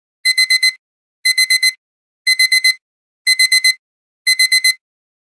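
Digital alarm-clock beeping signalling the countdown has ended: bursts of four quick high-pitched beeps, repeating about once a second.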